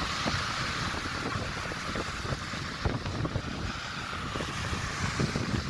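Strong wind buffeting the microphone in uneven gusts, over a steady rush of the sea.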